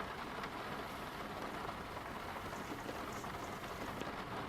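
Steady hiss of rain falling, with a few faint ticks of drops.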